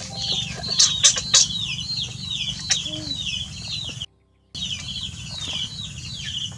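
Short high-pitched animal calls repeating several times a second, each dropping in pitch, with a few sharp clicks about a second in. All sound cuts out for about half a second a little past the middle.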